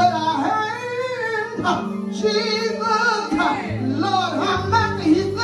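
A woman singing gospel into a microphone over held electric keyboard chords.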